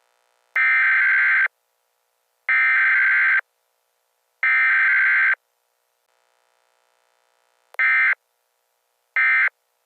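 Emergency Alert System SAME digital header tones: three screeching data bursts of about a second each, about two seconds apart, then two shorter end-of-message bursts near the end. There is no attention tone between header and end-of-message, the pattern of a Required Weekly Test.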